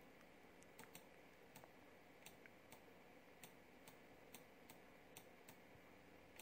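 Faint computer mouse clicks, about a dozen at uneven intervals, over near-silent room tone.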